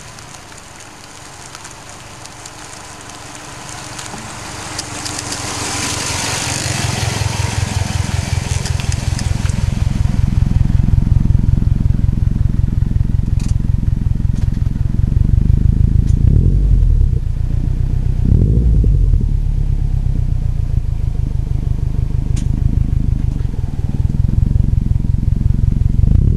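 Subaru Forester 2.5XT's turbocharged flat-four running through a Hayward & Scott aftermarket exhaust. The car closes in with a rising crunch and crackle of tyres on loose gravel, then the exhaust settles into a loud, low, pulsing burble, with two short revs a little past the middle.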